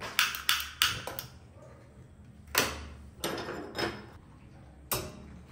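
Household objects being handled and set down: a quick run of four sharp clicks or knocks in the first second or so, then four more spaced out.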